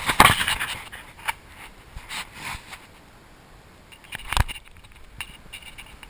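Handling noise on a hand-held action camera: rustling and scraping against the microphone with scattered small clicks, and one loud knock about four seconds in.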